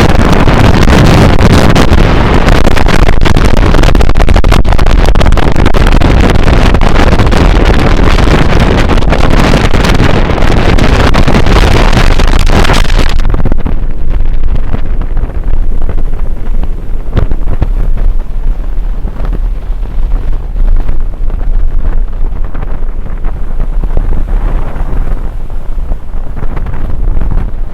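Strong coastal gale buffeting the microphone: loud, steady wind noise with a heavy low rumble. About halfway through, the high hiss falls away and the rumble carries on in gusts.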